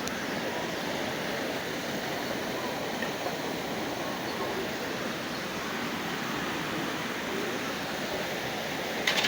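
Steady rushing of floodwater, an even wash of noise, with a short sharp knock near the end.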